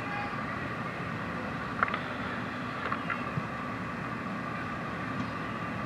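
Soccer field ambience: a steady low rumble and hiss, with a few brief sharp knocks about two and three seconds in, such as the ball being kicked.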